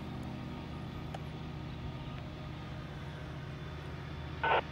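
A steady low engine hum, an engine running evenly at idle.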